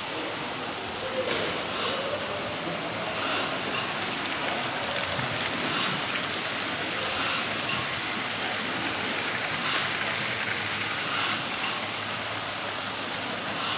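OO gauge model trains running on the layout: a steady high hiss of small motors and wheels on track, with faint clicks every couple of seconds.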